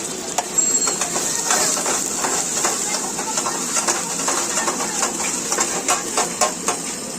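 A metal cooking utensil clattering and scraping against a pan in quick, irregular knocks, over a steady hiss.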